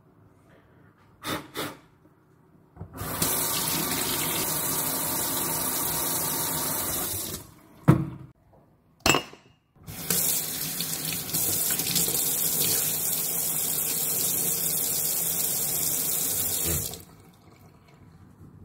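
Kitchen tap running into a stainless-steel sink in two stretches, about four seconds and then about seven seconds, with a couple of sharp knocks in the short gap between them.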